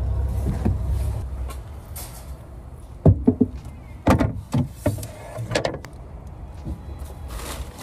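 Low steady rumble of a car's interior, then a series of sharp clunks and knocks from about three seconds in, like car doors and handling inside a vehicle.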